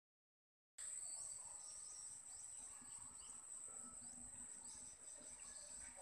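A steady high-pitched insect trill, with short high chirps repeating about every half second, starting about a second in.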